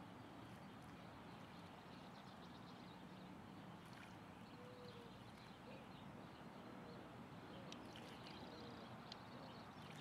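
Faint outdoor ambience with a few light splashes and ticks of water from a mockingbird bathing in a shallow birdbath, mostly in the second half. Faint short calls sound in the background.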